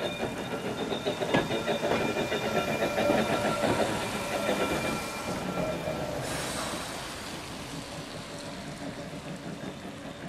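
Vintage electric tram passing close by on wet track: wheels rattling and clicking over the rails with a steady whine, loudest a few seconds in and fading as it moves away. A short hiss comes a little after halfway.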